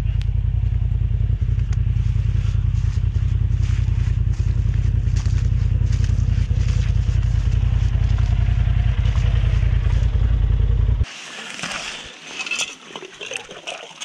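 Polaris off-road buggy engine running, a loud steady low rumble that cuts off suddenly about eleven seconds in. After that, quieter crackling and rustling noise with scattered clicks.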